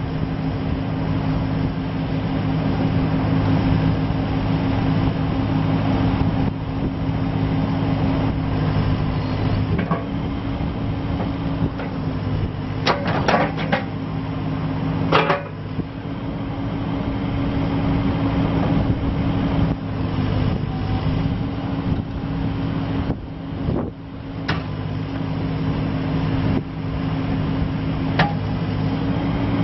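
Volvo BL60B backhoe loader's diesel engine running steadily, with a few sharp clanks, a cluster about halfway through and single ones later.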